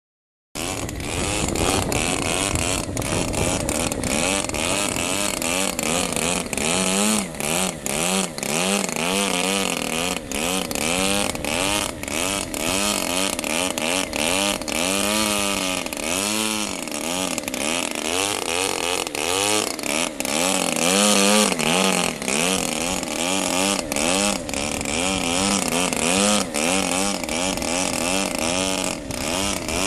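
Engine and propeller of a Great Planes Yak 54 81-inch radio-controlled aerobatic plane in a hover, the engine note rising and falling over and over as the throttle is worked to hold the plane up in gusty wind. The sound starts about half a second in.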